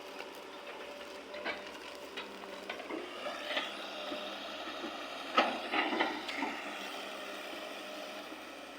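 Excavator at work: a steady engine hum with a series of irregular knocks and clanks, the loudest about five and a half seconds in.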